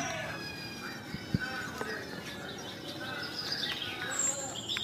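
Birds chirping and calling with short whistled notes, and a single light clink of a spoon against a small metal pot about a second and a half in.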